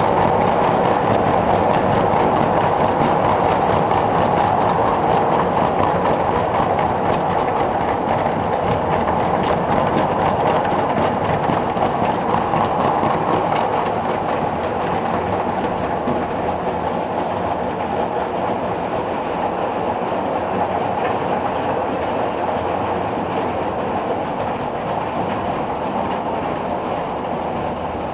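Ace Trains O gauge "Evening Star" model locomotive running steadily with a train of vans: a continuous whirr of motor and wheels with rapid clicking over the rail joints, slowly getting a little quieter.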